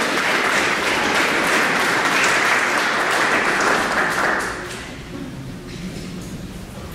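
Audience applauding. The clapping dies away about four and a half seconds in, leaving a few scattered claps.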